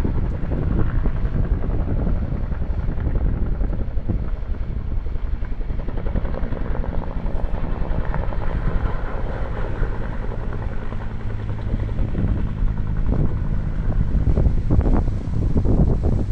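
Firefighting helicopter with a water bucket slung beneath it, rotor and engine heard as a steady low rumble as it lifts away from the pond with a filled bucket.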